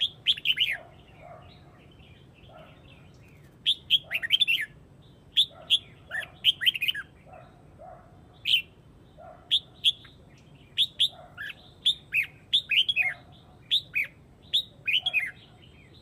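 Red-whiskered bulbul giving its flock call: about eight bursts of quick, chirpy whistled notes, many sliding downward, each burst a second or two apart.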